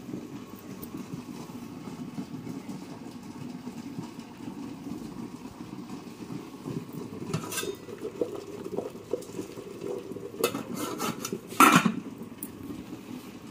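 Dishes and kitchen utensils clinking and knocking against each other over a steady low rustle of handling. There are a few sharp clinks, then a louder clatter near the end.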